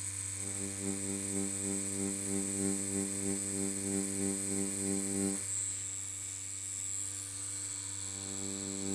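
Rotary tattoo pen machine running with a steady, pulsing hum as its needle works shading into silicone practice skin. The higher part of the hum drops out about five seconds in and comes back near the end, over a constant lower hum.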